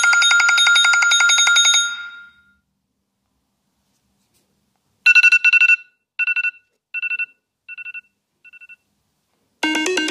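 iPhone ringtones. First a rapid telephone-bell-style trill rings for about two seconds. After a pause, a two-tone trilling signal repeats about six times, each fainter than the last, and near the end a new melodic ringtone begins.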